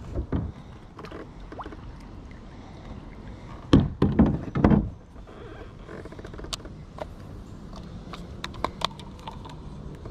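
Fishing tackle being handled in a plastic sit-on-top kayak: a quick run of about four heavy thumps against the hull about four seconds in. Scattered light clicks follow while the spincast reel is cranked.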